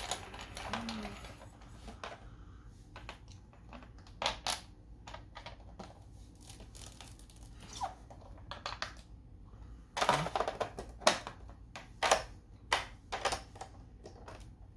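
Irregular light clicks and taps of small plastic LEGO pieces being handled and set down. There is a denser run of louder clicks about two-thirds of the way through.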